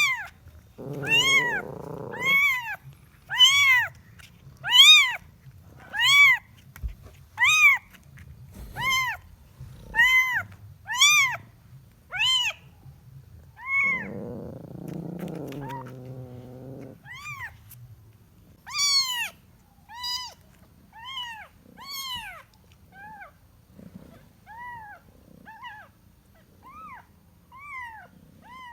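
A kitten meowing over and over, short high calls that rise and fall in pitch, about one a second: a kitten calling for its mother. The calls grow fainter in the second half. Twice a longer, lower sound runs beneath them.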